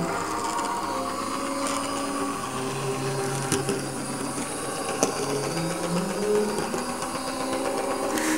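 Small electric motor of an HO-scale model tram whirring as the tram runs along the track, its pitch dropping and then rising again as the speed changes, with two sharp clicks partway through.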